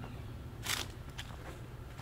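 A walker's footsteps crunching underfoot: one clear crunching step about two-thirds of a second in and a fainter one half a second later.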